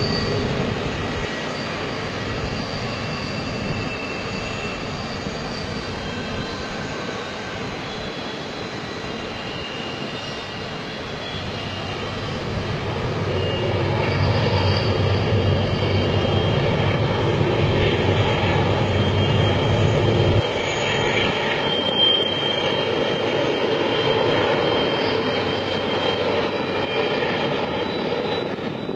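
A long train rolling steadily on its rails: a continuous rumble with thin high-pitched squeals coming and going, growing louder about halfway through.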